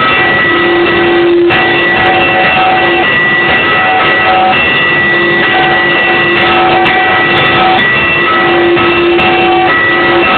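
Several church bells rung together at different speeds, loud and continuous, their clanging tones overlapping and restriking every second or so.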